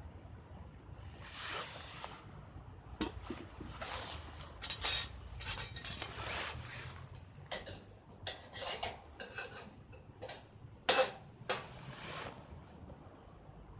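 Cookware and metal utensils being handled: irregular clinks, knocks and short scrapes, loudest in the middle and again near the end.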